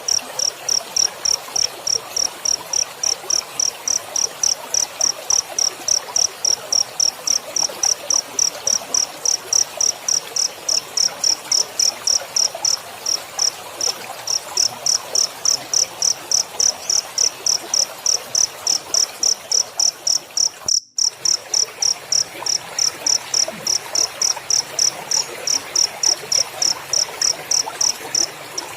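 Cricket chirping steadily in a regular train of high, ringing pulses, about three a second. It breaks off for an instant about two-thirds of the way through.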